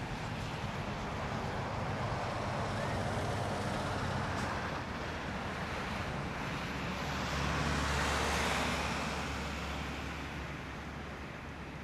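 Rolls-Royce Trent 700 turbofan engines of an Airbus A330-300 at takeoff power during the takeoff roll, heard from a distance as a steady rushing noise with a low rumble. It swells about eight seconds in, then eases a little.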